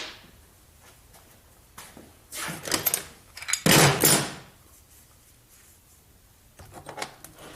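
Metal hand tools clattering and clinking as they are picked up and put away, in a few separate bursts with the loudest a little under four seconds in and a few light clicks near the end.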